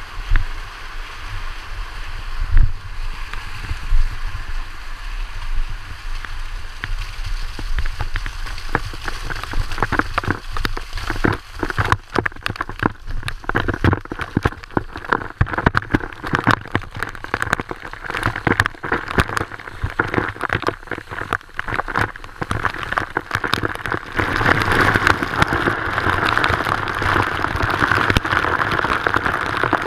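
Waterfall water falling and spraying close to the camera, with a steady rush and dense clicks of drops striking it that thicken from about twelve seconds in and are heaviest near the end. A few low knocks in the first few seconds, the loudest about two and a half seconds in.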